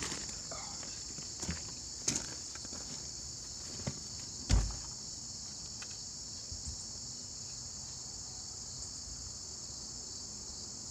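Steady, shrill chorus of insects, crickets among them, with a few faint clicks and one louder dull thump about four and a half seconds in.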